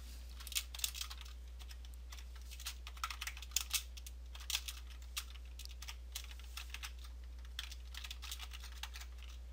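Computer keyboard typing: irregular keystrokes in short runs, a line of code being entered.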